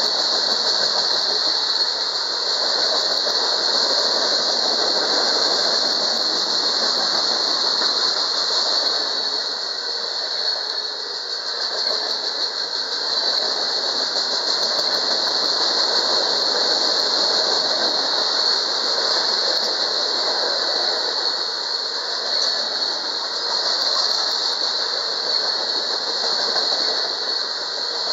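Freight train of open-top cars rolling past at close range: a steady rumble and rattle of wheels on rail, with a continuous high-pitched squeal over it.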